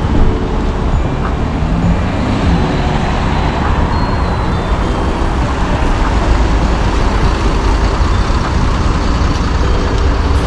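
City street ambience dominated by steady road traffic, with motor vehicles running past.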